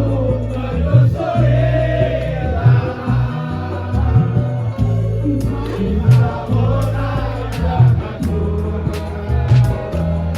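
Background music with singing over a steady bass beat, with crisp percussion ticks joining about halfway through.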